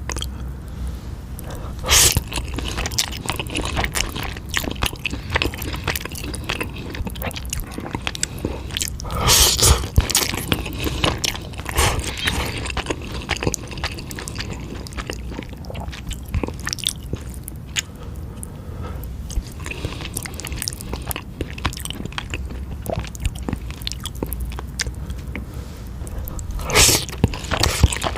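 Close-miked mouth sounds of a person eating eel with spicy fire-chicken noodles: steady chewing and biting with many small wet clicks. Three louder, longer bursts come about 2 seconds in, near the middle, and near the end.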